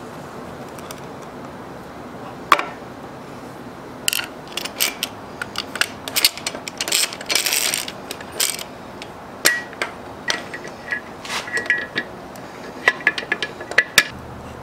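Metal parts of an Atlas lathe clicking, clinking and scraping together as the leadscrew and its end bracket are handled and fitted to the lathe bed. One sharp click comes about two seconds in, then a busy run of clinks and a stretch of scraping, with a few short ringing clinks near the end.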